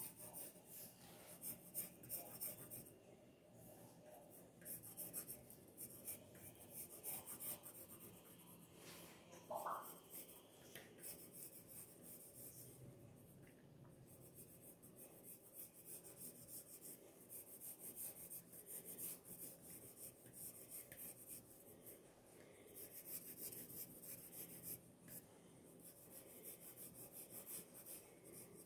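Pencil sketching on paper: faint scratchy strokes in irregular spurts, with a short squeak about ten seconds in.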